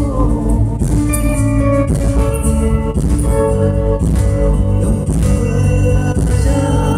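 Live rock-pop band playing loud, guitar-driven music, acoustic and electric guitars over bass, with a steady beat.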